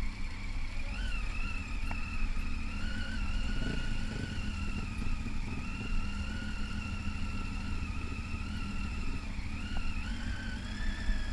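Adventure motorcycle riding along a dirt track: a steady low engine-and-wind rumble, with a thin high whine that wavers up and down in pitch.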